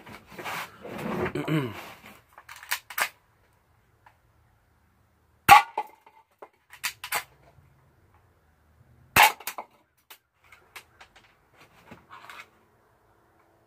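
Toy pistol firing plastic bullets: two sharp cracks about three and a half seconds apart, with lighter clicks from the gun being handled between and around them.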